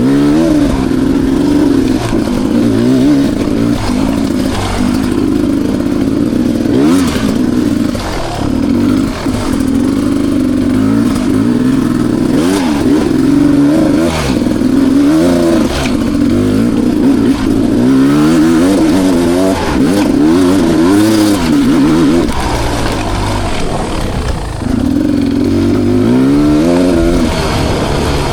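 2020 Beta 300 RR's single-cylinder two-stroke dirt bike engine under constant throttle changes, revving up and falling back again and again. About two-thirds of the way through it drops to a lower, steadier note for a few seconds before revving up again. A few brief knocks are mixed in.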